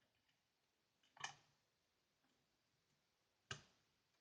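Two small clicks, one about a second in and one near the end, from the pre-lifter and wire picking the ERA Fortress five-lever deadlock; near silence between them.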